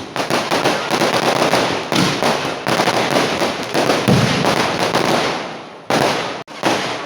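Kerala vedikettu fireworks: a dense, continuous barrage of firecracker blasts and crackling, with heavier booms about two seconds in, about four seconds in and near six seconds. The barrage briefly drops away just after six seconds, then picks up again.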